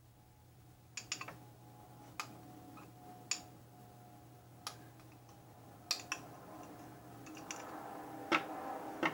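About ten irregular sharp clicks of a utensil knocking against a glass bowl and a small lip balm container while scraping out the last of the melted mixture, over a faint steady hum.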